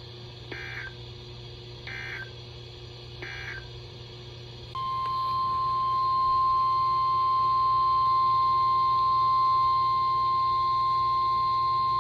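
Emergency Alert System signalling from NOAA Weather Radio: three short bursts of warbling SAME digital header data, about a second and a half apart. About five seconds in, the steady single-pitch 1050 Hz weather-radio warning alarm tone begins and holds, louder than the bursts. It announces the next warning.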